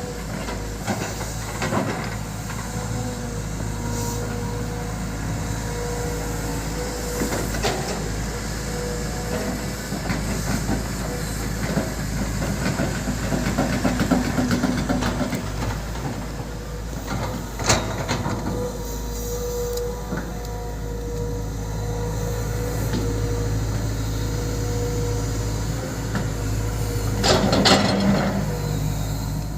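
Volvo EC200D excavator running at work, its engine holding a steady hum with a steady tone above it. A rattling clatter builds in the middle, and sharp metallic knocks come now and then, the loudest near the end.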